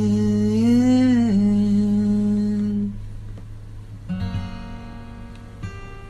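Male voice holding the last sung note over an acoustic guitar, the pitch swelling up and back down before it fades out about halfway through; then two quieter plucked acoustic guitar chords, about a second and a half apart, close the song.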